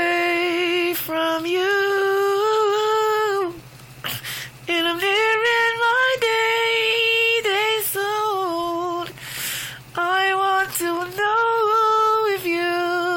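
A woman singing a slow song with no accompaniment, holding long notes with vibrato in phrases, with short breaths between them about four seconds in and again about nine seconds in.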